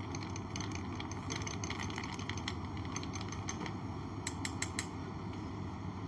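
A spoon stirring ice cubes in a wine glass: light, irregular clinks and ticks, with a quick cluster of them a little past four seconds, over a steady background hum.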